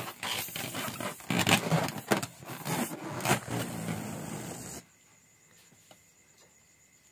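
Close rustling, rubbing and knocking noise. It cuts off suddenly about five seconds in and gives way to near silence.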